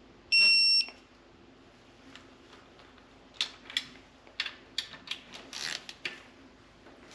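Digital torque wrench giving one short, high, steady beep as the bolt reaches its set torque. A few seconds in, about a dozen irregular sharp clicks follow from the wrench's ratchet as it is swung back and forth.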